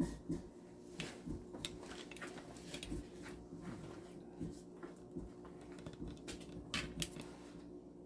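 Hands mixing and kneading corn dough for ablo in a plastic bowl: irregular soft slaps, squelches and clicks. A low steady hum runs underneath.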